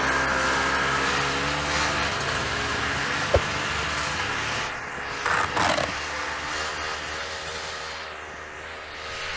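A small motorcycle engine running steadily and slowly fading, with a sharp click about three seconds in and a short rushing noise a little after five seconds.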